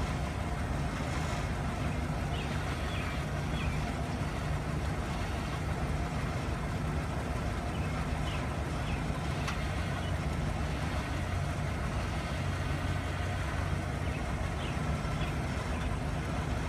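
A vehicle engine idling: a steady, even low rumble that holds the same pitch throughout.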